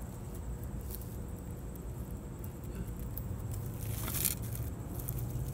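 Rustling and scraping in dry grass, with scattered small clicks, as it is disturbed while reaching in after a hiding scorpion, over a low steady rumble. A brief louder rustle comes about four seconds in.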